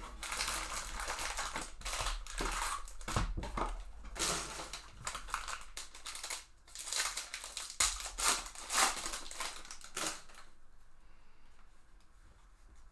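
Foil wrappers of trading-card packs crinkling as a pack is handled and torn open, a run of rustling bursts that stops about ten seconds in.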